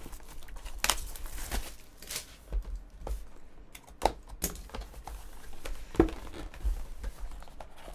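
Crinkling and tearing of packaging as a trading-card mini box is opened, with scattered clicks and rustles of handling and one sharper knock about six seconds in.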